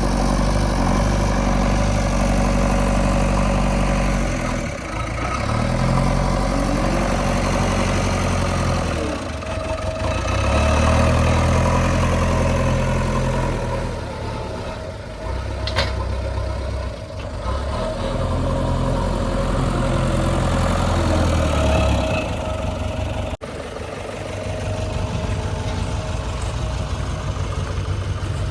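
Heavy diesel machinery engine running under a working load, its note dropping away and picking up again several times as the load changes.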